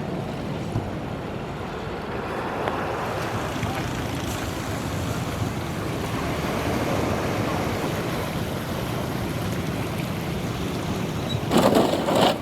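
Steady rushing outdoor noise with wind on the microphone, and a short loud buffet of wind near the end.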